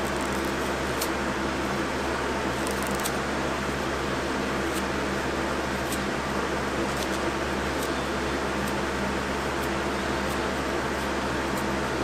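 Lasko 3733 box fan running steadily, pulling air through a MERV 8 furnace filter pressed against its back: an even rush of air over a low motor hum. Faint crackles of tissue paper being crumbled by hand come through now and then.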